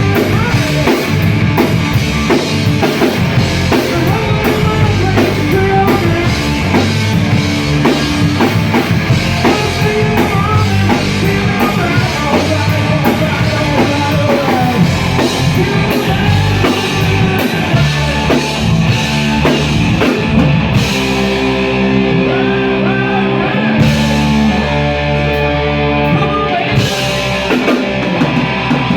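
Live rock band playing, with drum kit, electric guitar, bass and singing. Near the end the cymbals drop out for a few seconds while held notes ring, then the full band comes back in.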